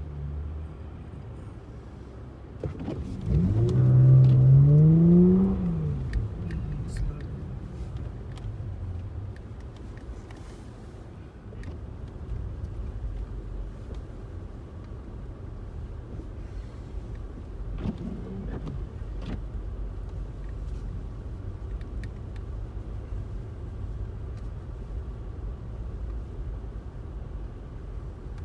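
Steady rumble of a car driving on the highway, with a loud tone rising in pitch for about two seconds around three seconds in, and a fainter one later.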